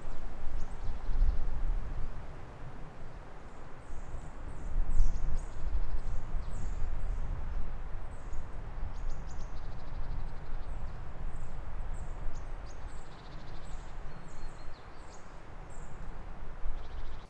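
Small birds calling with many short, high chirps that fall in pitch, over a louder, uneven low rumble of wind on the microphone.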